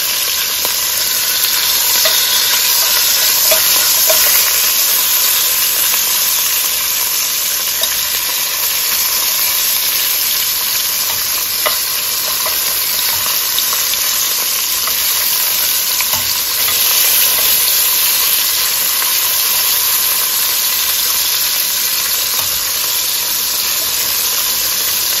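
Beef short ribs searing in hot canola oil in a Dutch oven, with a steady sizzle and a few light clicks of metal tongs as the pieces are turned.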